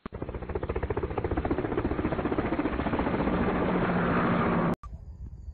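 Channel intro sound effect: a rapid, rhythmic whirring pulse that grows louder, then cuts off suddenly near the end. A faint outdoor background follows it.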